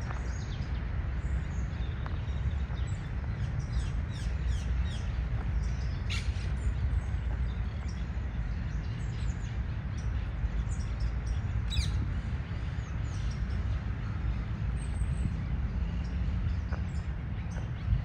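A flock of monk parakeets giving many short, high chirps and calls, with a couple of sharper calls standing out, over a steady low rumble.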